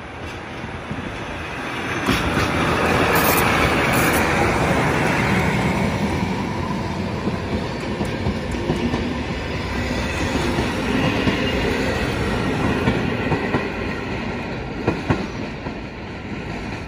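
Locomotive-hauled PKP Intercity passenger train passing close by. The noise swells sharply about two seconds in as the train draws level, then carries on as the coaches' wheels clatter over the rail joints, with a few sharp clicks near the end as it moves off.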